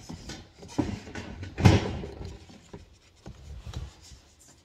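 Handling clatter: metal trays and other items knocking against each other and the sides of a plastic storage tote as they are lifted out, with one louder clatter about a second and a half in.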